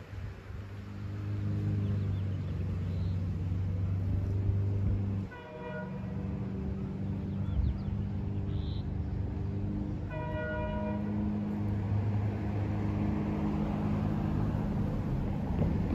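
BNSF diesel locomotive approaching out of sight: a steady low engine drone, with two short horn blasts, the first about five seconds in and the second about five seconds later.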